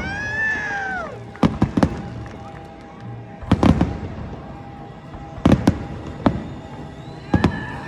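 Fireworks show: aerial shells bursting in clusters of sharp bangs, a group about every two seconds, with echoing tails.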